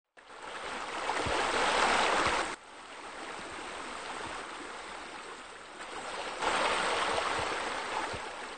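Running, splashing water of pool fountains and water features, a steady rush. It drops abruptly about two and a half seconds in and swells again about six and a half seconds in, with a few soft low thuds in the loud stretches.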